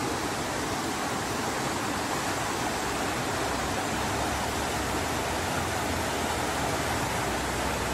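Floodwater rushing fast down a swollen, muddy stream after heavy rain: a steady, even rush of water.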